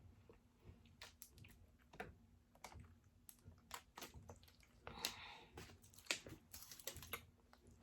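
Faint chewing and wet mouth clicks of a person eating, in small irregular clicks, with a short crunchy rustle about five seconds in.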